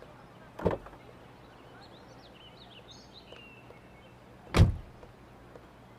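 Two dull thumps, a soft one near the start and a louder, deeper one past the middle, with faint bird chirps in the background.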